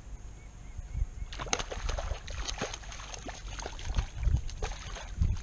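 A hooked channel catfish thrashing at the surface beside a kayak, a rapid, irregular run of splashes beginning about a second in.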